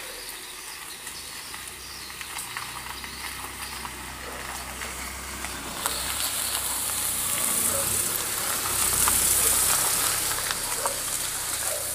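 Daihatsu SUV driving slowly over a gravel driveway: a low engine rumble with tyres crunching on gravel, growing louder after about six seconds as the car passes close by.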